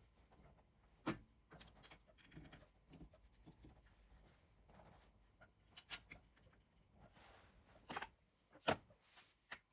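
Sharp metallic clicks and knocks, a few seconds apart and loudest near the end, as motorcycle engine parts are handled on a workbench: a finned two-stroke cylinder barrel is seated on the crankcase and small metal parts are picked up.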